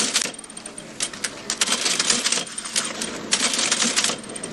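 Cash register being rung up at a checkout: fingers tapping its keys in several quick runs of clicks as the items are entered.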